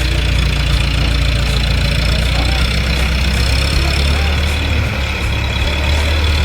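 Heavy diesel truck engine idling steadily, a deep, even hum.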